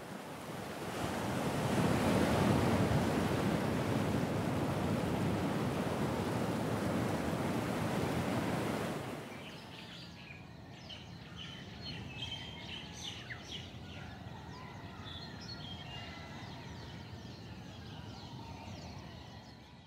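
Ocean surf washing, swelling in over the first two seconds and holding steady until about nine seconds in. Then it gives way to a quieter background full of small birds chirping, which fades out near the end.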